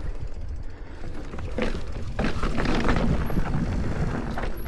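Wind buffeting a helmet- or bike-mounted camera's microphone as a mountain bike rolls along a dirt trail, a constant low rumble. Rattles and knocks from the bike and tyres come through, loudest about one and a half to three seconds in.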